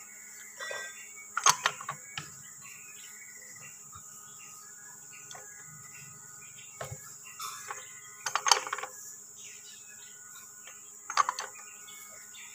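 Three brief metal-on-metal clanks as a socket and long bar are worked onto a differential's pinion nut, over a steady high insect drone with a few faint bird chirps.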